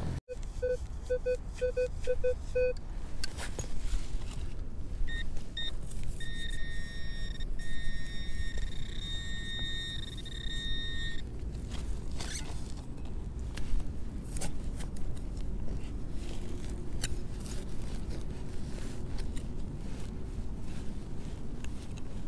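Electronic beeping from metal-detecting gear: a quick run of low beeps, a few higher blips, then a steady high tone lasting about five seconds. After that, scraping and clicking of a hand digger working through grass and soil.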